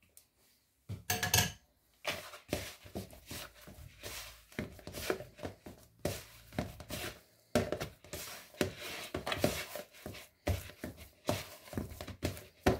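Soft, slightly sticky yeast dough being kneaded by hand in a stainless steel bowl: irregular slaps and knocks of the hand and dough against the metal, starting about a second in.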